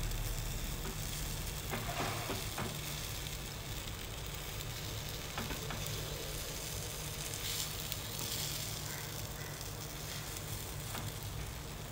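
Paniyaram batter frying in oil in the wells of a paniyaram pan, a steady sizzle. A few light clicks and scrapes come as a knife pries at and turns the dumplings, about two seconds in and again around five and seven seconds.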